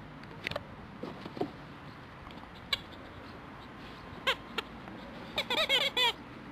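Dog chewing a rubber squeaky toy: short single squeaks every second or so, then a quick run of about six squeaks near the end.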